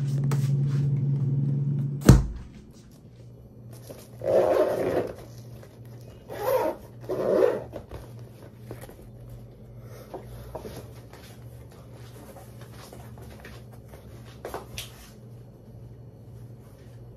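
Refrigerator running with a steady hum while its door stands open, then the door is shut with a loud thud about two seconds in. A few seconds later come three short, rough noises, followed by light handling clicks.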